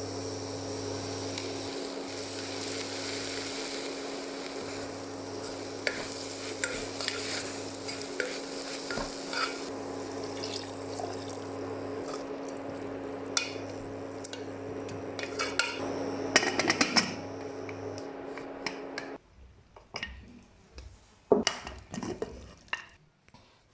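Soup in a pan sizzling and bubbling while a spoon stirs it and clinks against the pan. The steady sizzle cuts off about three-quarters of the way through, leaving a few scattered knocks and clicks of utensils.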